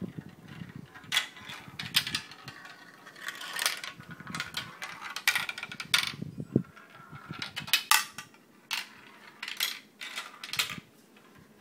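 A marble clattering down a thin double-staircase marble run, dropping from step to step in a long string of sharp, irregular clicks and taps.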